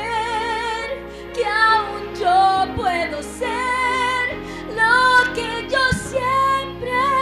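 A woman singing a Christian worship ballad, belting long held notes with a wide vibrato over instrumental accompaniment.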